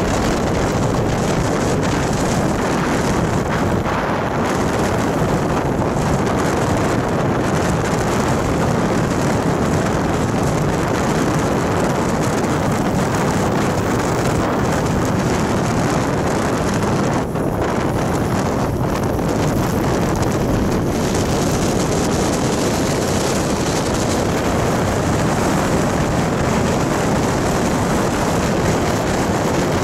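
Steady, loud wind noise on the microphone of a camera travelling along the road, with vehicle running noise mixed in.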